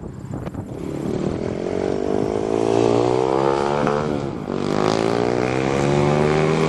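Dodge pickup truck's engine revving up under hard acceleration, its pitch climbing for about three seconds, dropping briefly about four seconds in, then climbing again.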